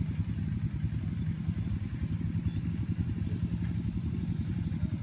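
An engine idling steadily: a low, even, fast-pulsing rumble.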